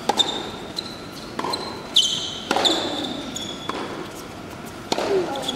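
Tennis rally on a hard court: sharp racket strikes on the ball and ball bounces come every second or so. Tennis shoes squeak high on the court surface as the player pushes off and changes direction.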